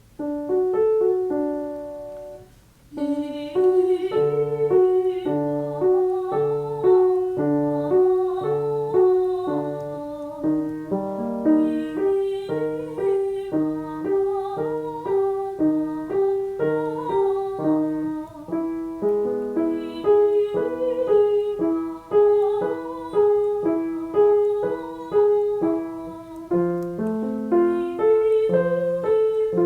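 Piano playing a vocal warm-up accompaniment: a short figure of even, detached notes over a bass note, repeated over and over and moved up a step every several seconds. A voice sings along faintly at times.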